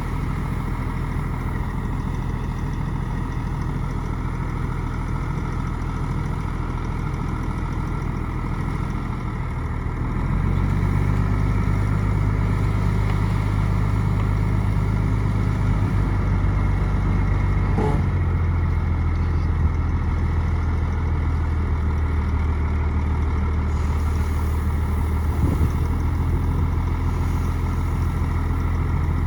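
Diesel engine of a bulldozer running steadily with a low drone. About a third of the way in it gets louder, as the engine takes on more load, and holds there.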